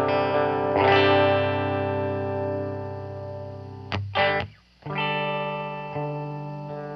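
Electric guitar chords played through an Electro-Harmonix The Worm modulation pedal, re-amped in stereo through two amps. The chords ring and fade; a little past halfway there is a quick slide and a brief gap before the next chord comes in.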